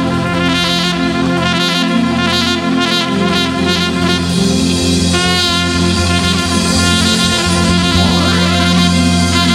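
Worship band playing an instrumental passage: a sustained melody line over steady chords and drums, with one wavering held note about five seconds in.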